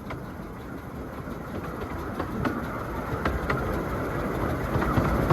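A train running past, growing louder, its wheels clicking in pairs over the rail joints.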